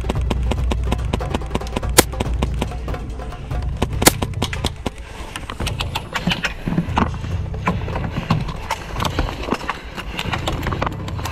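Rapid clicking and snapping of airsoft gunfire and BBs striking, with two sharp cracks about two and four seconds in, over background music with a steady low bass.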